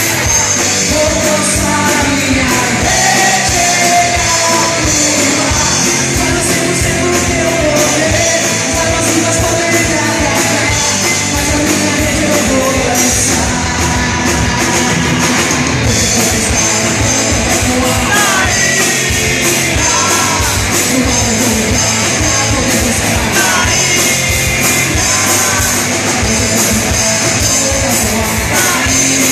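Hard rock band playing live at full volume, with a singer over the driving band.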